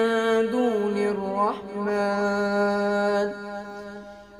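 A male voice reciting the Quran in melodic tajweed style, holding long drawn-out notes. The held note steps down in pitch twice in the first second and a half, then fades out about three seconds in.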